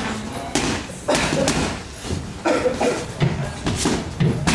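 Boxing gloves punching focus mitts: about seven sharp smacks in quick, uneven combinations.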